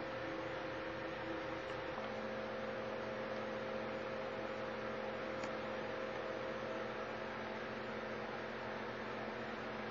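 Steady electrical hum and hiss of a home-video recording, with no distinct sound event; the hum shifts slightly about two seconds in.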